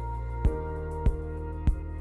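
Soft instrumental background music: a sustained low chord with a short note sounding about every 0.6 seconds.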